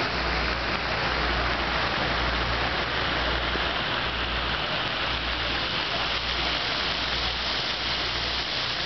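Steady hiss of water splashing from a fountain in a pond, with a low rumble coming and going underneath.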